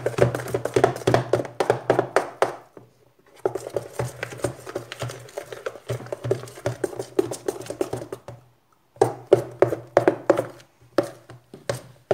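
Spoon stirring a sticky mix of glue and shaving foam in a bowl: a fast, uneven run of clicks and scrapes against the bowl, with two short pauses.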